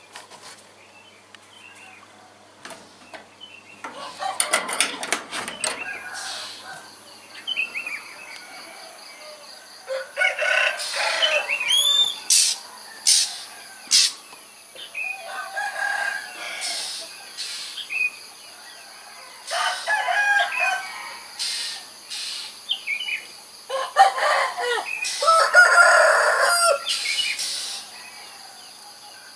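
Roosters crowing over and over in the dawn, among chirping birds, with a steady high-pitched hum underneath. A rapid clatter sounds about four seconds in.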